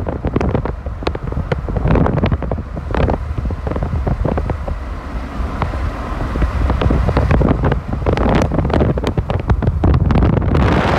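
Wind buffeting the microphone of a phone held at the window of a moving car, in uneven gusts over the steady low rumble of the car on the road.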